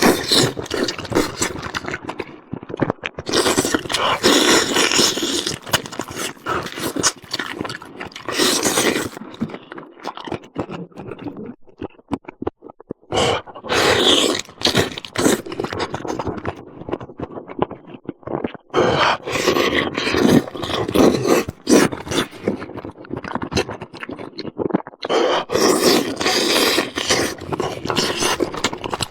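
Close-miked eating sounds of a turkey leg: meat being bitten, torn and chewed, with wet smacking and clicking in bouts broken by short pauses.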